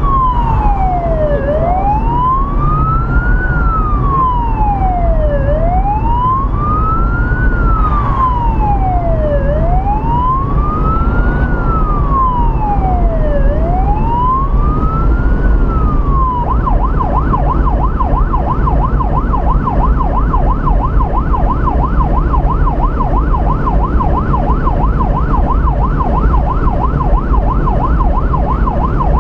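Police car siren heard from inside the moving car, first a slow wail rising and falling about every four seconds, then switching about halfway through to a fast yelp. Steady road and engine noise lies underneath.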